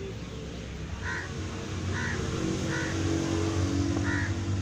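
A motor vehicle's engine running, a low hum that grows louder from about a second in. Four short high calls sound over it.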